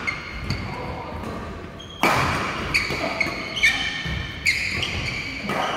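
Badminton rally: rackets striking the shuttlecock several times, with players' shoes squeaking briefly on the court floor in the middle of the rally.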